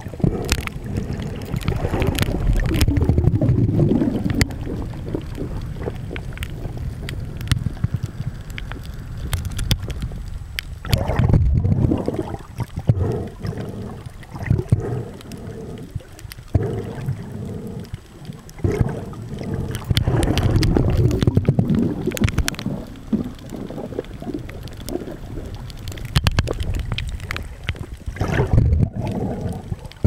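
Muffled low rumbling and sloshing of water around a camera held under the sea, swelling and fading in surges every few seconds, with scattered clicks and knocks.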